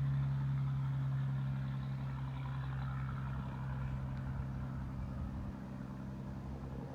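2003 Dodge Ram 3500's 5.9 Cummins diesel running through a 5-inch straight-piped exhaust, a steady low drone holding one pitch, cutting off at the end.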